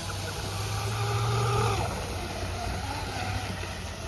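A motor's steady low hum with a fainter, higher whine over it, dropping away about two seconds in.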